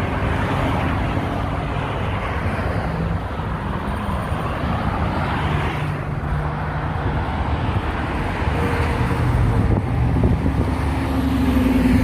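Steady road traffic noise from passing cars and trucks, getting somewhat louder near the end.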